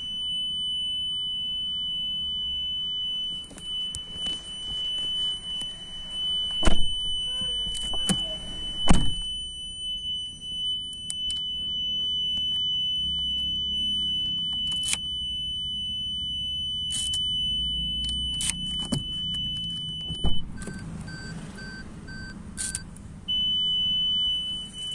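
Maruti Suzuki Fronx reverse parking buzzer sounding one continuous high-pitched tone, left on with the car in reverse and the key removed: a fault that keeps the parking warning on. About twenty seconds in, the tone stops and a pulsing beep plays for about two seconds, then the steady tone comes back. Sharp clicks and knocks fall here and there throughout.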